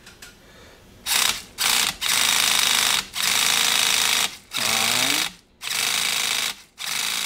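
Traxxas Revo 3.3's nitro engine spun over by its starter in about seven short bursts of half a second to a second each, priming it to draw fuel up into the carburetor without firing.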